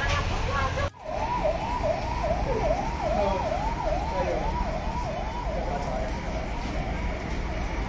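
Siren in a fast yelp, its pitch sweeping down and back up about three times a second, starting after a sudden cut about a second in.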